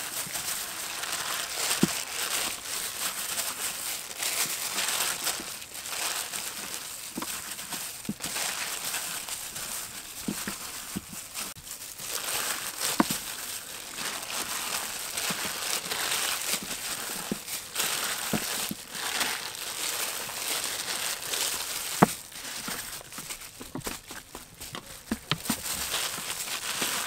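Raw chicken pieces being dredged in flour by hands in thin plastic gloves in a metal tray: continuous rustling and crinkling of the gloves and flour, with a few sharp clicks.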